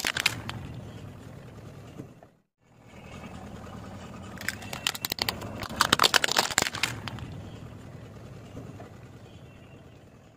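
Car tyre rolling over plastic toys on asphalt, cracking and snapping them in a dense run of sharp cracks about five seconds in, with a shorter run of crunches at the very start. The car's engine hums low and steady underneath.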